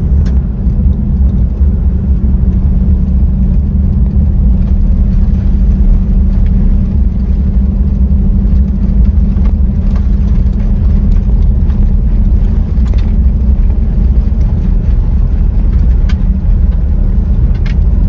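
Toyota Land Cruiser 70 (HZJ71V) with its 1HZ straight-six diesel driving along, a steady low engine and road rumble with a few faint ticks.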